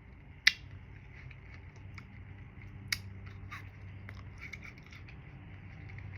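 Eating a frozen fruit bar: sharp clicks and small crunches of biting and chewing, with one loud click about half a second in, another about three seconds in, and lighter ticks between them.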